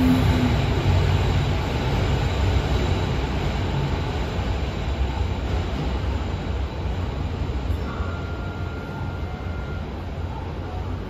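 Low, steady rumble of a Toei 12-600 series subway train standing at an underground platform, slowly growing quieter, with a brief faint tone about eight seconds in.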